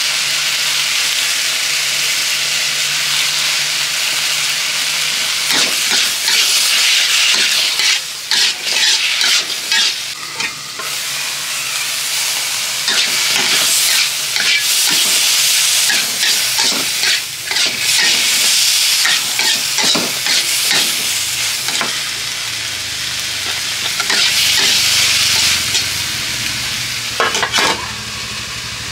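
Sliced banana stem stir-frying in a wok: steady sizzling, with a metal spatula scraping and knocking against the pan in repeated bursts of stirring. The sizzle turns quieter near the end, when a lid covers the wok.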